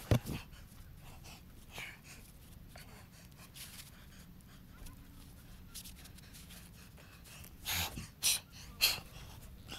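A rock climber's hard breathing and scuffing against sandstone while jamming up a wide crack. There is a sharp knock at the start and faint scuffs, then three loud, quick breaths about eight seconds in.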